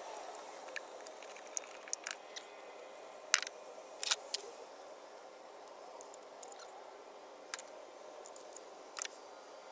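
Scattered sharp clicks and light metal clinks of hand tools, a 3/8 ratchet with extension and U-joint, being handled while working on a spark plug, over a faint steady background. The loudest clink comes about three and a half seconds in.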